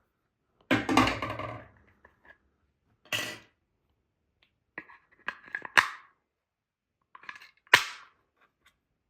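Batteries being fitted into a small plastic thermo-hygrometer: a string of separate clicks and rattles of batteries and plastic casing, with a longer rattle about a second in and the sharpest click near the end.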